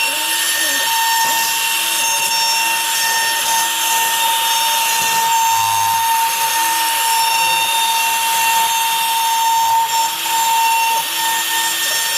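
CNC router spindle cutting wood on a rough clearance pass: a steady high whine over a constant hiss of cutting.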